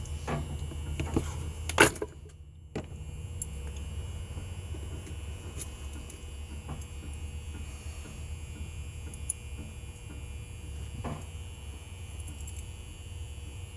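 Small metal clicks and taps from handling a deadbolt lock cylinder, its key and pins during rekeying. A sharp click comes about two seconds in and fainter ticks follow every second or two, over a steady low hum.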